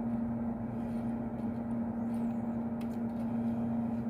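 Fume extractor fan running with a steady hum over a low whoosh of air, while pins are hand-soldered; a few faint ticks near the end.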